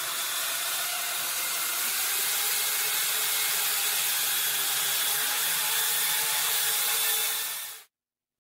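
Corded electric drill running steadily as it bores into the steel sheet metal of a Model A door: a steady hiss with a faint whine. It cuts off suddenly near the end.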